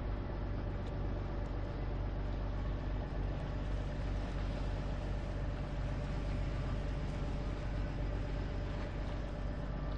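Boat engine idling steadily, a constant low hum with no change.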